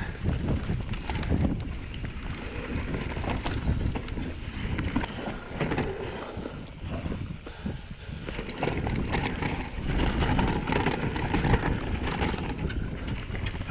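Mountain bike descending a dirt trail at speed: wind buffeting the on-bike camera microphone and tyres rumbling over the ground, with frequent sharp clacks and rattles from the bike over the bumps.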